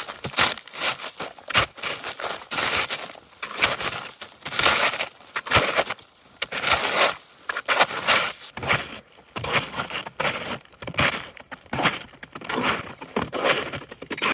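Footsteps crunching through snow at a steady walking pace, each step a short crunch about half a second apart.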